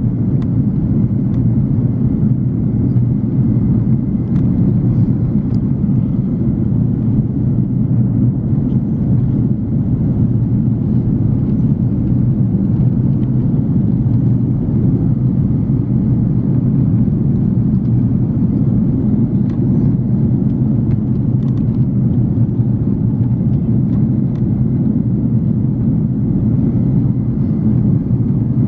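Steady, loud low rumble of airliner cabin noise inside an Airbus A340-300, its four CFM56 engines and the airflow running evenly with no change in level.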